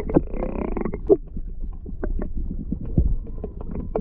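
Underwater sound picked up by a camera submerged in the sea: a low muffled rumble of moving water with irregular clicks and knocks, and a brief buzzing tone in the first second.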